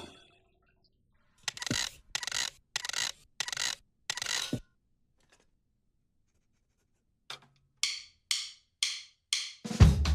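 Two runs of short, sharp, noisy percussive hits, six and then five, separated by a pause. Just before the end a full drum kit comes in loud, with bass drum and snare.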